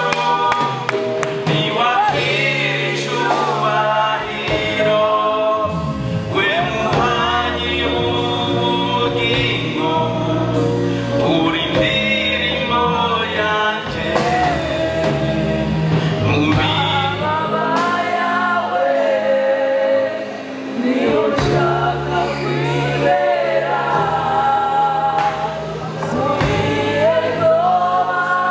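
Gospel music: a choir singing over a bass line and a steady beat.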